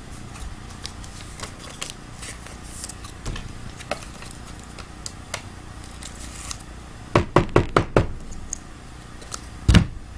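Clicks and taps of trading cards being handled on a tabletop, with a quick run of about six knocks about seven seconds in and a louder knock near the end.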